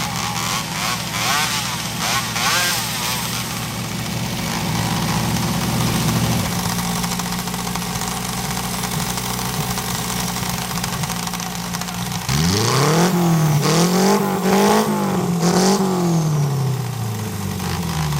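Engine idling steadily, its pitch dropping slightly about six seconds in. Then, from about twelve seconds in, it is revved up and down several times in quick succession.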